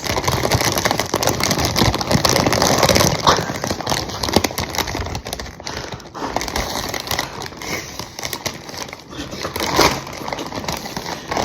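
Crinkling of a plastic snack bag being handled and opened, a continuous crackle, loudest in the first few seconds.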